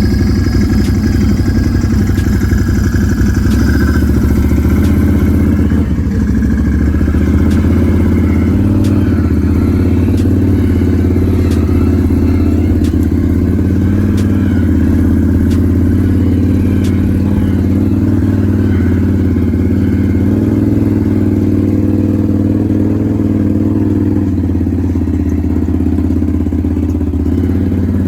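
Can-Am Renegade 1000 XMR ATV's V-twin engine running steadily, its pitch shifting only slightly, with a few light clicks and clatter.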